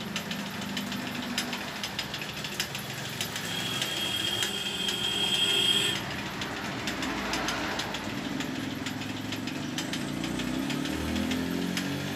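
Scattered metal clicks and knocks of the vulcanizing machine and its clamps being handled and fitted onto a tyre. A high hiss starts about three seconds in and cuts off suddenly about six seconds in.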